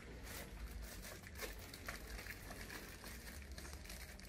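Plastic packaging bag crinkling as it is handled and opened, a run of faint, irregular crackles.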